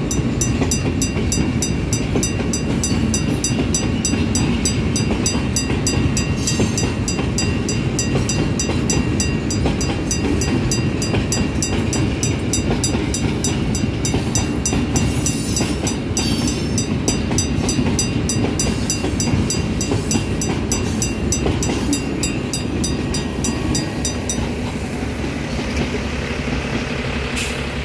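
Freight train of tank wagons rolling past at close range: a steady rumble of wheels on the rails with a quick, regular clicking, about two or three a second. The clicking stops near the end and the rumble eases.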